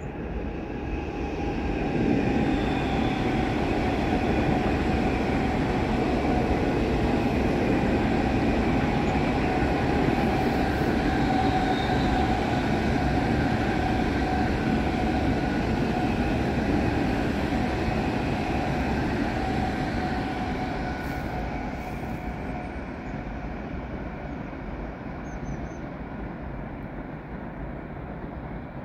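Train running through the station: a steady rumble of wheels on rails with several high, level tones above it, easing off over the last several seconds.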